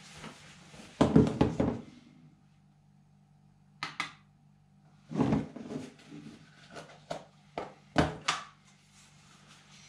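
Plastic containers and their snap-on lids handled and set down on a kitchen counter: a clatter of knocks about a second in, more knocks a few seconds later, then scattered single clicks.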